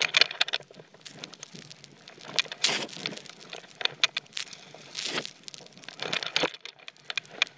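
Snowboard riding through powder snow: irregular swooshes of the board turning and sliding, mixed with crinkling and rubbing of the rider's backpack and clothing right against the backpack-mounted camera. Louder swooshes come about two and a half, five and six and a half seconds in.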